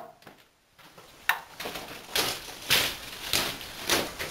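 Footsteps crunching on a gritty floor, a step roughly every half second, after a brief hush and a single sharp click about a second in.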